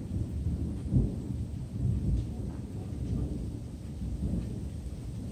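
Thunder rumbling in uneven low swells, loudest about a second in.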